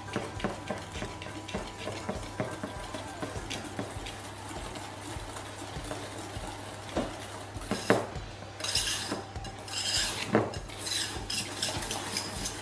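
Whisk beating madeleine batter in a stainless steel bowl, its wires clinking and scraping against the metal, to blend in the melted butter until the batter is smooth. From about eight seconds in the strokes get louder, a scraping rhythm of about two a second.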